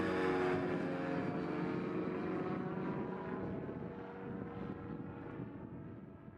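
A Quad City Challenger XL ultralight's engine and propeller running as the plane passes overhead. The pitch drops slightly as it goes by, and the sound fades steadily as it flies away.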